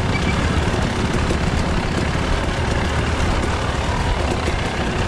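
KTM enduro dirt bike engine running steadily at low revs while riding over a rocky trail.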